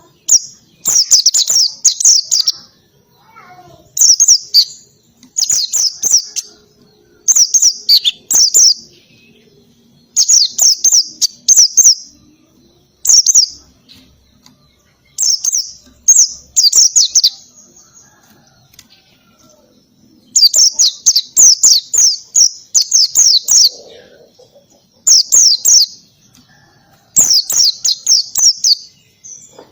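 White-eye (pleci) singing: loud, high, rapid strings of sharp down-slurred notes, delivered in phrases of a second or two with short pauses between. It is the canary-like 'tembakan kenari' (canary-shot) song style.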